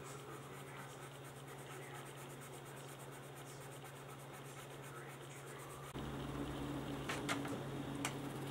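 Carbon pencil scratching on cotton drawing paper while filling in solid black shading, over a steady low hum. The hum grows louder about six seconds in, and a few sharp ticks come near the end.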